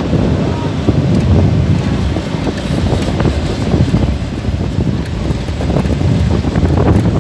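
Heavy wind buffeting the microphone of a motorcycle moving at road speed, over a low engine and road rumble.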